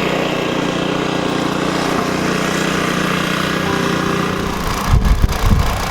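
Steady vehicle engine and road drone, with a few heavy low rumbling jolts near the end.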